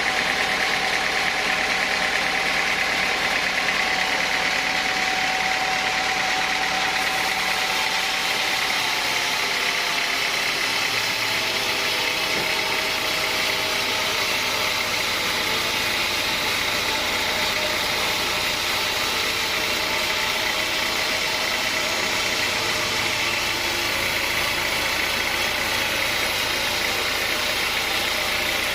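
Sawmill saw machinery running steadily, a constant mechanical hum and hiss, its tone dropping slightly about eight to ten seconds in.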